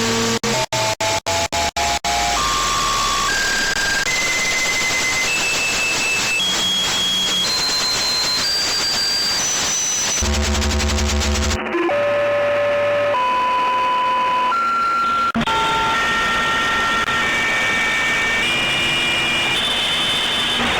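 Radio receiver on 146.328 MHz playing an unidentified signal: a loud hiss of static carrying a sequence of single beeping tones that step upward in pitch roughly every half second, starting over low again near the middle and once more later on. It cuts out briefly several times in the first two seconds.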